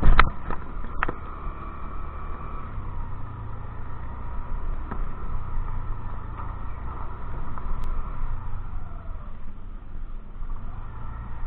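A scooter riding along, with wind rushing over the microphone as a steady low rumble and a faint steady hum. A few sharp knocks come in the first second.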